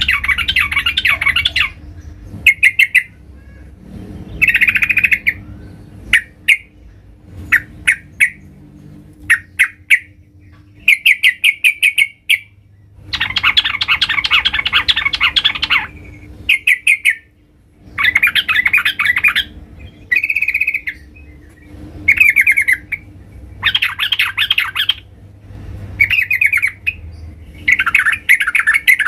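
Yellow-vented bulbul (trucukan) calling loudly in repeated bursts of fast chattering notes, with a longer harsh chatter about halfway through.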